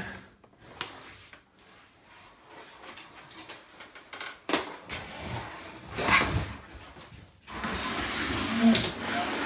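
Cardboard and plastic packaging being handled and set aside: a few separate knocks, then about two seconds of rustling near the end.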